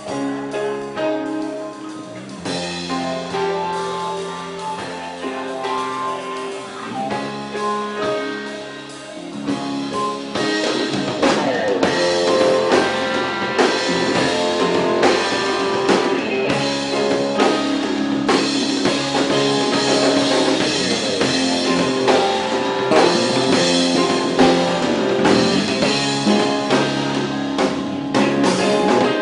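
A live pop-rock band playing: sustained keyboard and guitar chords at first, then drums come in about ten seconds in and the full band plays louder, with a woman singing over it.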